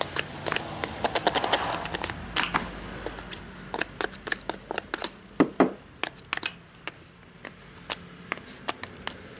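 Irregular small clicks and taps of hard parts and tools being handled while a pole saw's cutting head is cleaned of gummed-up bar oil and sawdust.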